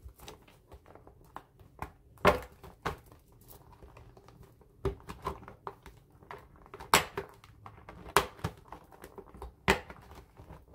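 Clear plastic planner cover being worked onto the metal discs of a disc-bound Happy Planner: a handful of sharp plastic clicks, one every second or two, with crinkling of the plastic sheet between them.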